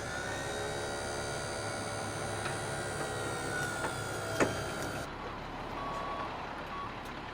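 A motor whining as it lifts a heavy log. It spins up with a quick rising whine, runs at a steady pitch, and stops about five seconds in, with a sharp knock shortly before it stops.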